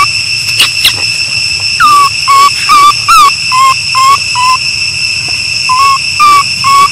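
Baby macaque crying in a string of short, high, whistle-like coos, about two a second with a brief pause partway through: the distress calls of an infant monkey left on its own.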